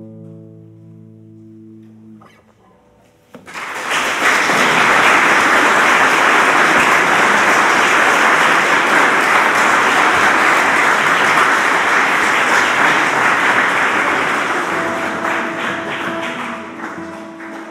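The last chord of a classical guitar piece rings and dies away, then the audience breaks into steady applause about three seconds in, which thins out over the last few seconds as a guitar note rings beneath it.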